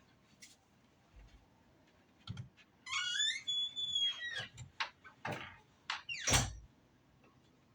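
A squeaky door being handled: a hinge squeal that rises and then holds a high note, among several knocks and clacks, ending in a heavy thud as the door shuts.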